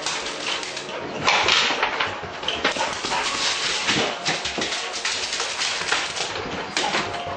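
A bulldog puppy scrambling about on a tile floor: a busy clatter of claw clicks, skids and knocks, with some barking. The clatter is loudest about a second and a half in.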